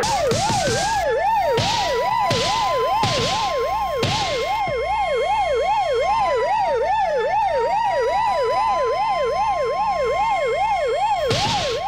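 Two sirens sounding together: one warbling rapidly up and down, about two and a half cycles a second, over a steady held tone that sags briefly about halfway through. Short bursts of hiss break in several times in the first four seconds and again near the end, and the sirens cut off at the end.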